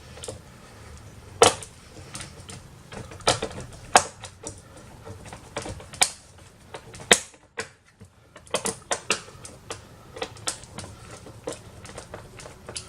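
Irregular clicks and knocks of plastic parts and tools being handled while the all-in-one computer is put back together. The sharpest knocks come about a second and a half in, at four seconds and at seven seconds, with a quick run of clicks just after the middle.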